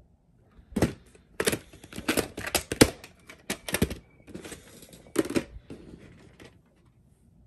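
A plastic VHS clamshell case opened and the cassette handled: a quick run of sharp hard-plastic clacks and rattles, with a softer rubbing noise after about four seconds.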